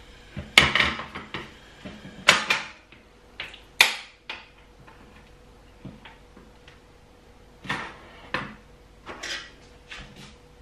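Kitchen clatter of a lidded steel saucepan being handled on a portable gas stove as the stove is turned off: a few sharp clicks and knocks, the loudest about four seconds in. Near the end come softer short sounds of a knife cutting into a watermelon wedge on a wooden board.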